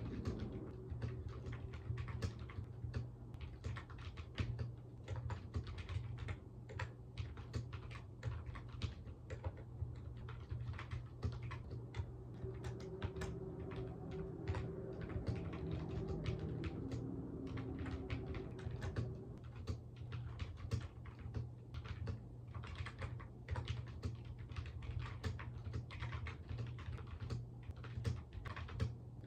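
Continuous typing on a computer keyboard: quick, irregular key clicks in runs with short pauses, over a steady low hum.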